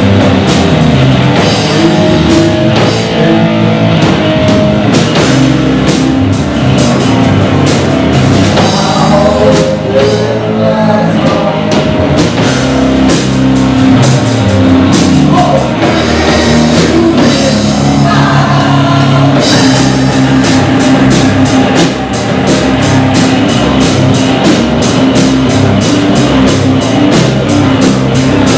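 A live rock band playing loudly: a singer over electric guitar, bass guitar and a drum kit, in a heavy rock style. About two-thirds of the way in, the drums pick up a fast, even cymbal beat.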